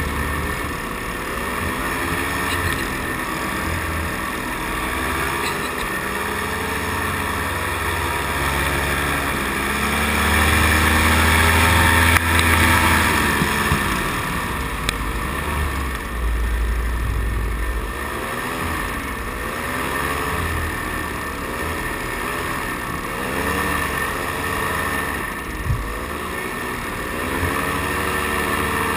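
Paramotor engine and propeller running in flight, its pitch rising and falling again and again as the throttle is worked through the turns.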